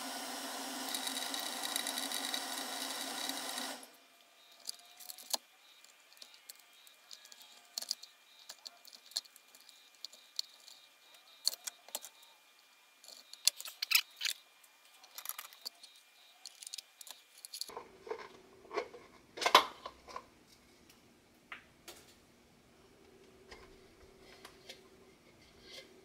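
Scattered clicks, clinks and small knocks of plastic housing parts and metal gears being handled and pried apart while a Sea-Doo sea scooter's corroded, seized motor gearbox is opened. A steady hum stops abruptly about four seconds in, and the sharpest knock comes a little past the middle.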